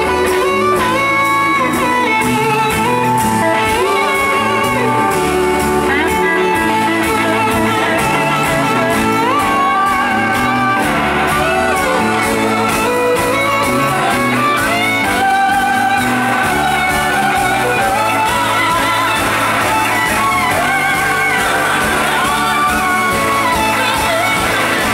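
Live rock band playing: electric guitars over bass and drums, with a male voice singing.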